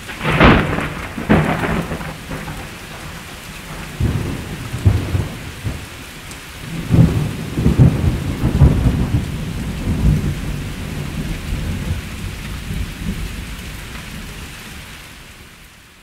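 Thunderstorm with steady rain: a sharp thunderclap about half a second in and another about a second later, then rolling rumbles of thunder around four seconds in and again from about seven to ten seconds, with the whole storm fading out near the end.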